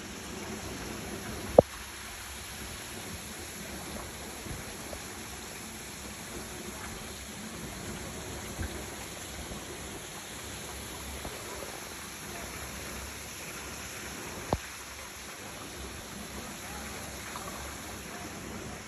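Steady rush of running water, with two sharp clicks, the louder one about a second and a half in.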